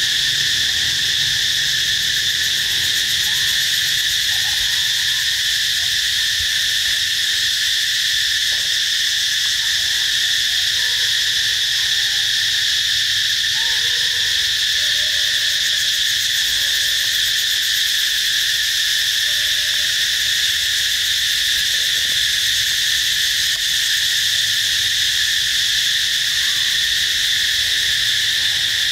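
Steady, high-pitched insect chorus, an unbroken drone of cicadas or crickets, with a few faint short calls underneath.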